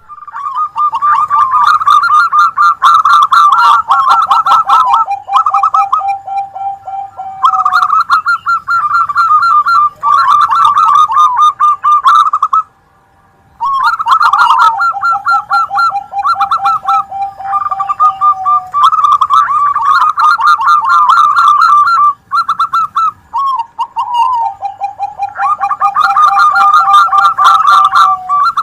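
Several zebra doves (perkutut) singing together, their rapid staccato cooing phrases overlapping. A lower rolling run of quick notes comes back every several seconds, and there is a brief pause about halfway.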